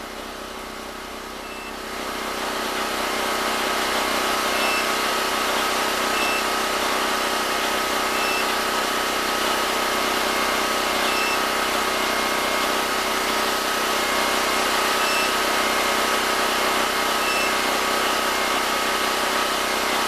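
Predator 6500 portable generator engine running steadily, with a constant mechanical hum; it gets louder about two seconds in and then holds even.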